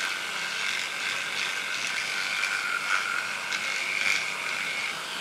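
Electric toothbrush running with a steady buzz while brushing a toddler's teeth, stopping shortly before the end.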